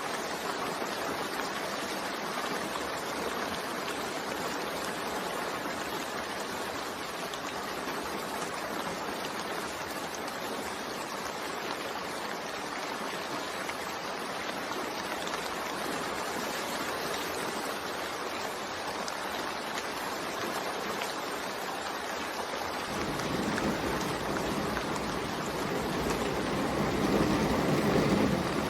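Steady rain falling, an even hiss of water. About three-quarters of the way through, a low rumble comes in beneath it and grows louder near the end.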